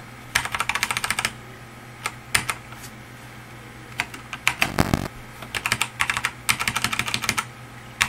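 Computer keyboard keys being pressed in several quick runs of clicks with short pauses between, as a file is edited. A duller thump sounds about five seconds in.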